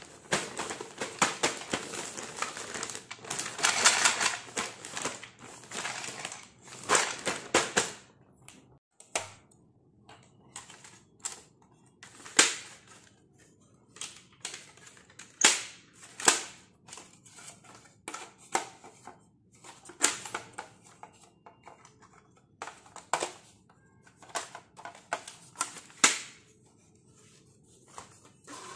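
A clear plastic bag of toy pieces crinkling steadily as it is handled for about eight seconds. Then come scattered sharp clicks and taps of hard plastic dollhouse parts being handled, with short quiet gaps between them.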